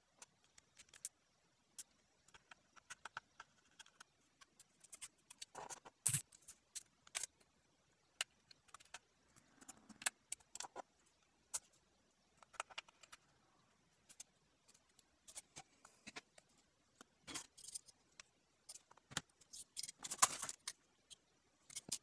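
Tiny screws and a screwdriver being handled on a metal laptop drive caddy and optical drive: faint, scattered clicks and light metallic rattles, with a sharper click about six seconds in and a busier run of rattling near the end.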